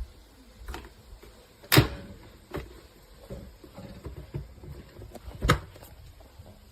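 Several short, sharp clicks and knocks from handling a Nespresso Vertuo Pop capsule coffee machine and its mug, the loudest about two seconds in and another near the end.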